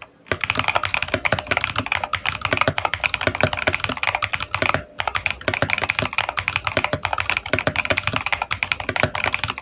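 Fast continuous typing on a Skyshiu SK-68 V4 mini mechanical keyboard with red switches. The rapid keystrokes start just after the beginning and pause briefly about halfway through.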